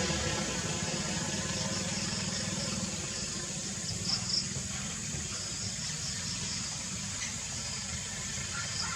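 Outdoor ambience: a vehicle's engine hum fading away at the start, then a steady hiss with insects, broken by a couple of short high chirps about four seconds in and again near the end.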